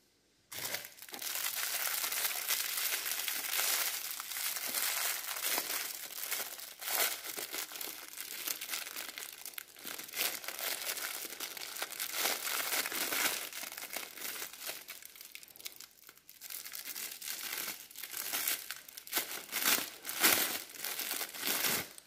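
Thin clear plastic packaging bag crinkling and crackling as hands work it open, starting about half a second in and going on unevenly throughout.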